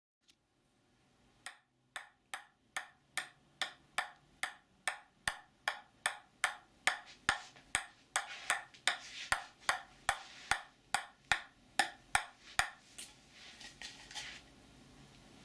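Sharp, evenly spaced knocking, about two and a half knocks a second, getting louder over the first few strikes and stopping about thirteen seconds in.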